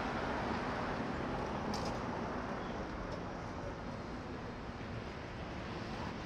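City street traffic noise: a steady rush of passing vehicles that eases slightly after the first second or two.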